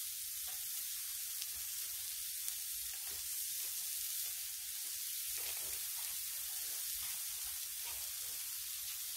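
Balls of freshly ground tri-tip beef sizzling steadily on a hot Blackstone flat-top griddle, with a few faint pops.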